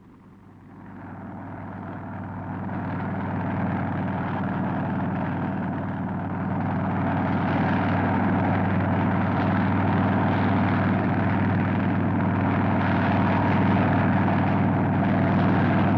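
Westland Whirlwind helicopter in flight, its engine and rotor sound growing louder over the first few seconds and then holding steady.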